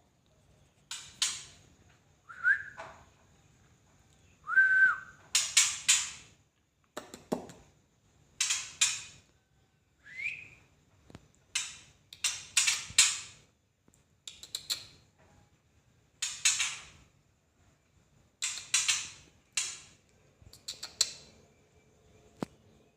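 Young caged songbird calling: a string of short, harsh, rasping calls every second or two, with a few brief clear whistled notes among them.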